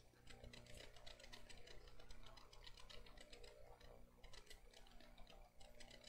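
Faint, rapid scratching and light ticking of a pen writing on paper, over a low steady hum.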